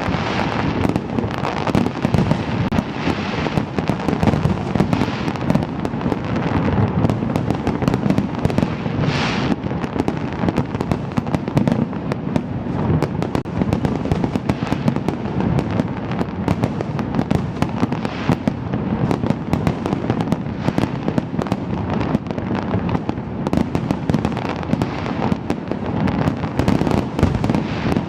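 Fireworks display going off without a break: a dense, continuous stream of bangs and crackling pops, many overlapping.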